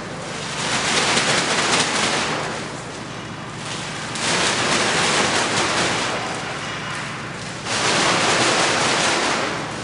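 A plastic bag rustling and brushing against a wall in three long swells of scraping noise, each about two seconds, with quieter stretches between.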